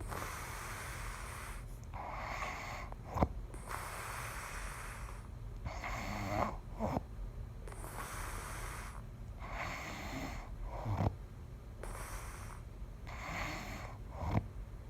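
A person snoring in sleep: rasping breaths in and out, one every second or so, broken by a few short sharp catches. The uploader wonders whether the snoring is bad enough to see a doctor about.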